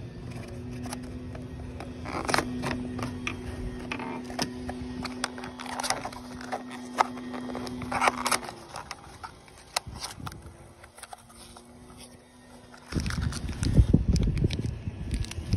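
Hands unpacking a replacement sensor: a cardboard parts box handled and opened with scattered clicks and rustles, then a small plastic zip bag crinkled close by in heavier rustling and bumps near the end. A steady low hum runs underneath for the first half and then stops.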